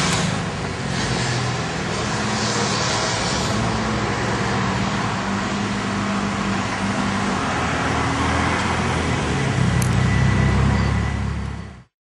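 Car engines running steadily with road noise as lowered VW Golf Mk2s drive slowly past. The sound cuts off suddenly near the end.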